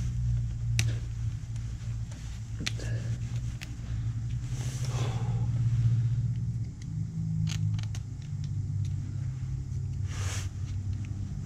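A steady low machine hum runs throughout. Over it, a few scattered sharp clicks and brief scrapes come from a steel pick working at a snap ring inside a control-arm joint housing, trying to pry it out.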